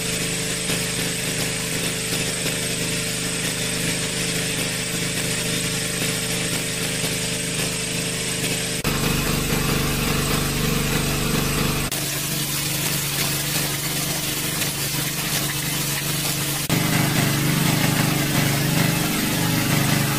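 Small petrol-engine water pump running steadily at full throttle, with water gushing from its discharge pipe. The engine's sound shifts abruptly three times.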